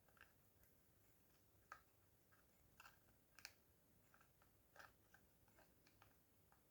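Near silence broken by faint, irregular small clicks and ticks, about a dozen, from soldering work along the tab seam of LTO pouch battery cells.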